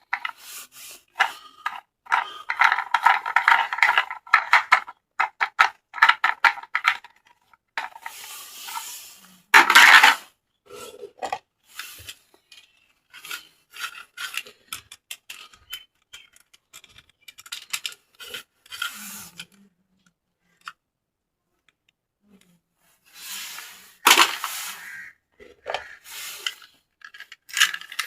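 Toys and their packaging being handled close to the microphone: many small clicks, taps and rubbing scrapes, thick in the first few seconds, with a few louder rustles and a short quiet pause about three-quarters through.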